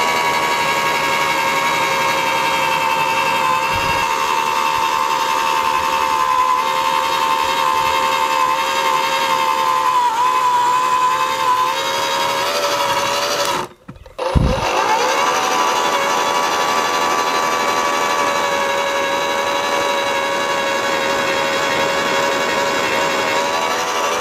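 Electric motor and gearbox of an AEG 36-volt (twin 18 V battery) post hole borer running under load as the auger bores into soil, a steady whine. About 14 seconds in it breaks off abruptly, then spins back up with a rising whine and runs on.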